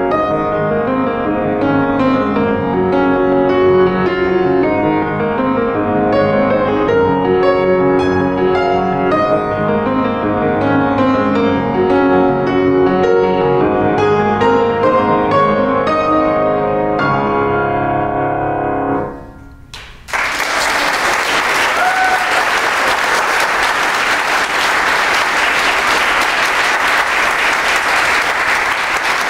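Solo grand piano playing a flowing passage of many notes, closing on a held chord that fades out. After a second of quiet, an audience breaks into steady applause for the last nine seconds or so.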